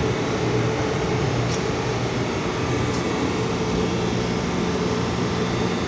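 Steady drone of running machinery with a low, even hum.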